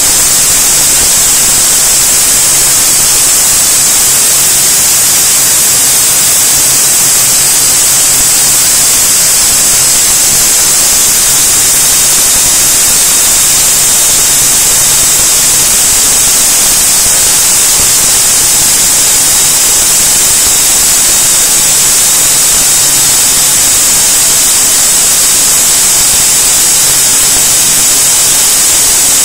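Automatic band saw machine cutting through aluminium round bars: a loud, steady hiss with a high whine in it and a faint low hum underneath.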